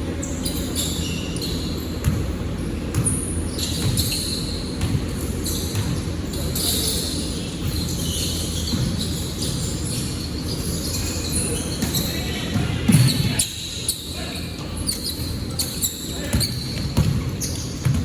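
Basketball game in a gym: the ball bouncing on the court and sneakers squeaking in short high chirps, echoing in the hall.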